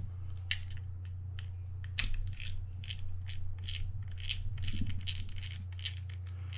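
Front drag knob of a Quantum Catalyst spinning reel being screwed down onto the spool, its detent clicking steadily at about three to four clicks a second. A few scattered handling clicks come before the steady run.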